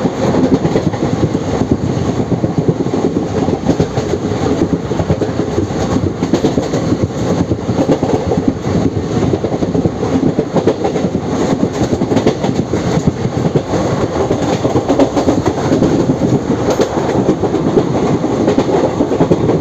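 Indian Railways ICF passenger coaches of the Deccan Queen running at speed: a steady rolling rumble with the clickety-clack of wheels over rail joints, keeping up without a break.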